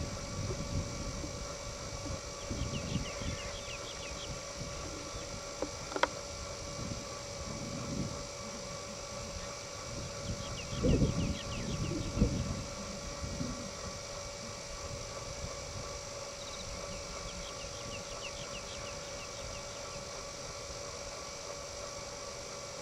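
Outdoor ambience: uneven low gusts of wind on the microphone, loudest about halfway through, with a few short runs of bird chirping and a steady hum underneath. One sharp click about a quarter of the way in.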